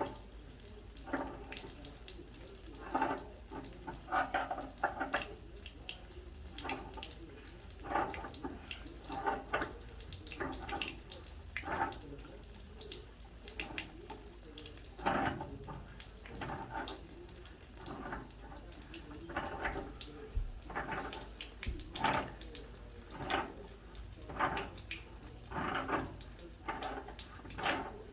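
Water dripping and splashing in irregular drops, about one a second, from a water heater pipe fitting being loosened with pliers.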